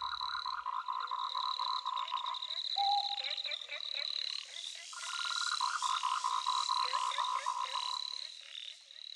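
A chorus of frogs calling, several at once, in long rapid trains of pulsed croaks that overlap one another; it thins and fades out near the end.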